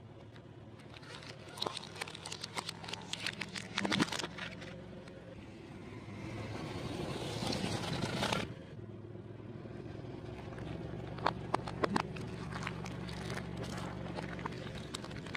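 A car's engine running slowly as its tyre rolls over objects on concrete and crushes them. Plastic cracks and snaps in the first few seconds, a long squashing crush comes as the tyre rides over a large yellow fruit from about six to eight seconds, and a few more sharp cracks come near the end.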